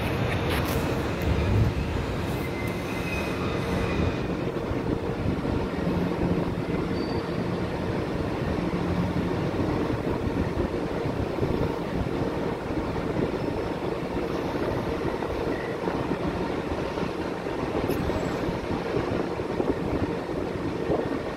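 São Paulo Metro train pulling into the platform and standing with its doors open, a steady rumble of rail traffic and the train's running equipment. A faint high squeal a few seconds in.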